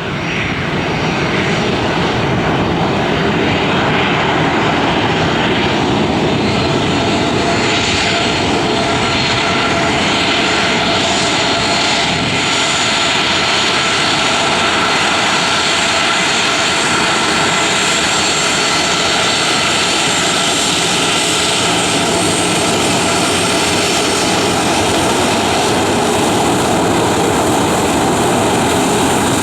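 Airliner engines running loud and steady close by: a broad roar with a few steady whining tones. It swells over the first couple of seconds, then holds.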